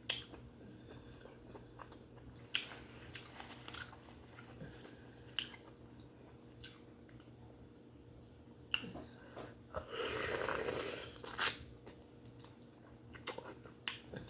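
Close-miked chewing of steamed conch meat: wet mouth sounds with scattered short clicks, and a louder noisy stretch lasting about a second and a half around ten seconds in.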